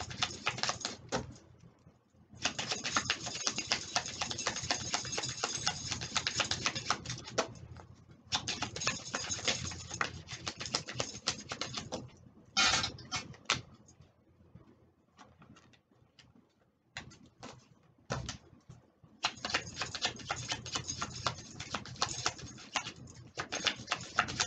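A deck of oracle cards shuffled by hand: runs of rapid flicking clicks a few seconds long, broken by short pauses, with only scattered clicks for a few seconds in the middle.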